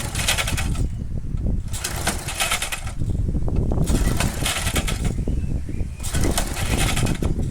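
Briggs & Stratton engine on a push lawn mower being pull-started: four rasping pulls of the recoil starter, about two seconds apart, and the engine does not catch. The owner suspects the carburettor may need checking.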